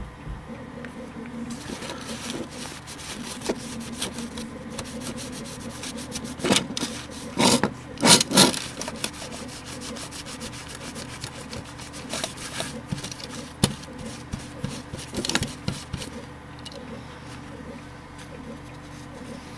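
A cloth rubs and wipes over the metal chassis of a floppy disk drive in irregular strokes. The strokes are loudest about a third of the way in and come again a few seconds later, over a steady low hum.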